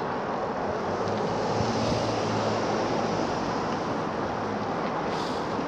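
Steady rushing wind noise on the microphone while cycling along a road. A faint low engine hum of traffic rises a little in the first half.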